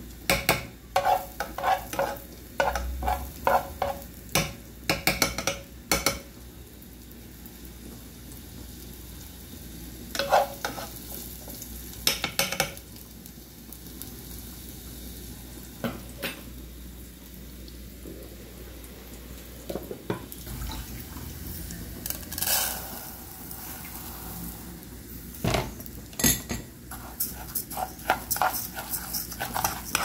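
Chopped garlic frying in oil in a pot with a low, steady sizzle. A metal spoon stirs and scrapes against the pot in repeated bursts of clinks; near the end it stirs dry rice grains into the pot.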